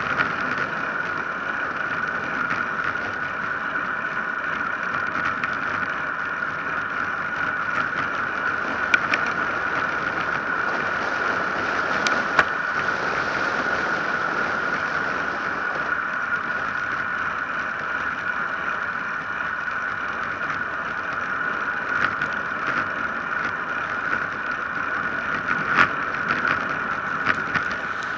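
Road bike coasting downhill on asphalt: a steady rush of wind on the microphone and tyre noise, with a constant high buzzing tone and a few sharp clicks scattered through.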